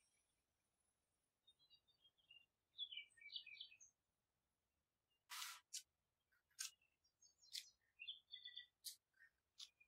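Faint bird-like chirps, followed from about halfway by a series of short, soft swishing noises.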